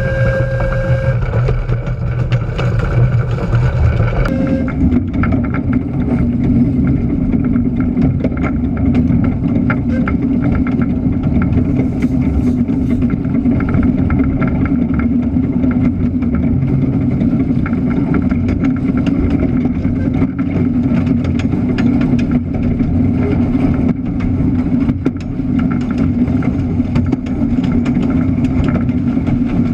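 Steady running noise of a small train moving along the track, heard from close beside the wheels. About four seconds in the sound changes to a steadier, lower rumble that carries on unbroken, with scattered light clicks.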